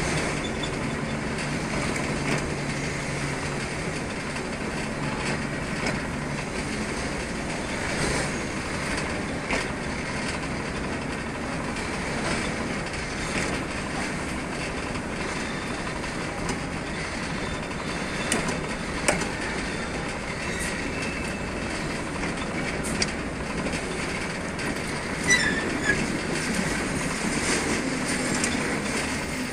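TGM6V diesel shunting locomotive rolling slowly along a worn industrial branch line: steady running noise with scattered knocks and clicks from the wheels over the rail joints, and a brief wheel squeal near the end.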